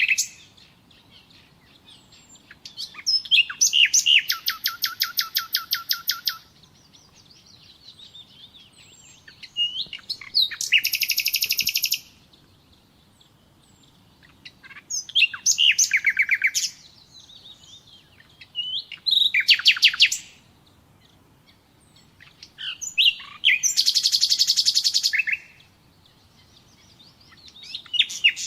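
Nightingale singing: about six song phrases, each a rapid run of repeated notes lasting one to three seconds, separated by pauses of a few seconds.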